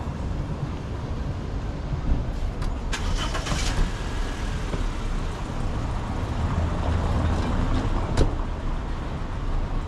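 City street traffic: cars running past with a steady low rumble. There is a brief hiss about three seconds in and a sharp knock about eight seconds in.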